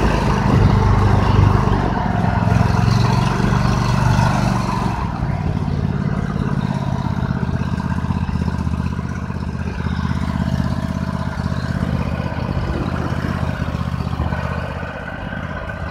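Lifan 24 hp petrol engine of a homemade karakat running under way, heard from the seat. About five seconds in the throttle eases off and it runs lower and steadier as the machine slows.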